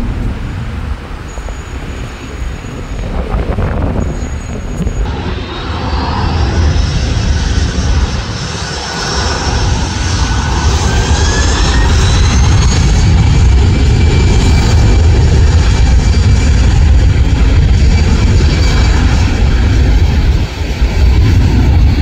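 Wind on the microphone at first. About five seconds in it gives way to an Airbus A319's jet engines spooling up, several whines rising in pitch together, then a loud, steady roar at takeoff power as the airliner rolls down the runway.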